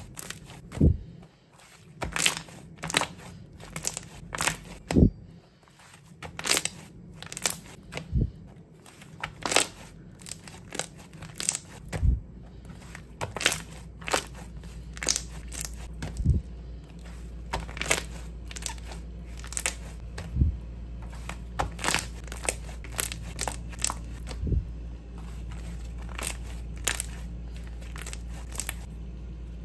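White slime kneaded, folded and pressed flat by hand, giving irregular sharp pops and crackles, several a second.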